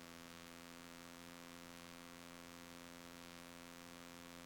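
Near silence: a faint steady hum and hiss on the aircraft's intercom audio feed between radio calls.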